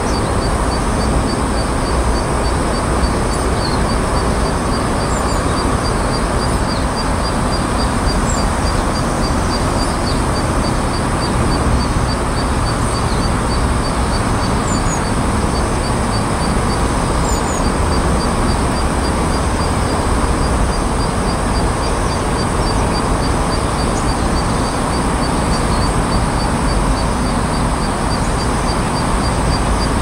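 Steady outdoor rushing noise, with a faint high ticking about twice a second and a few faint short high chirps.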